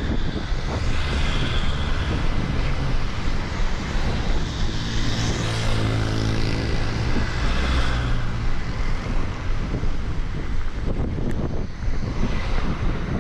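Road traffic passing close by on a multi-lane city road, with one vehicle swelling and fading as it goes past about halfway through. Wind buffets the microphone throughout.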